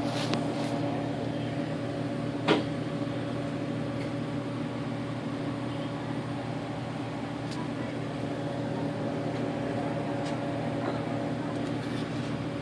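Steady machine hum at several fixed pitches, with a sharp click about two and a half seconds in and a few fainter ticks.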